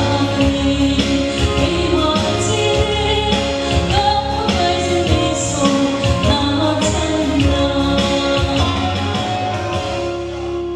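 A woman singing a song into a microphone with instrumental backing and a steady beat; the music fades down near the end.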